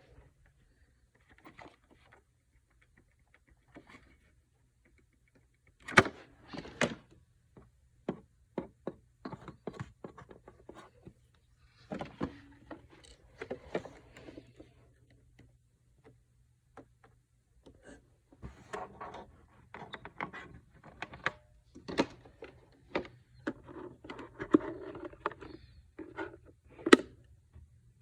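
Irregular knocks, clicks and thunks, single or in short clusters with gaps between, the sharpest about six seconds in and near the end.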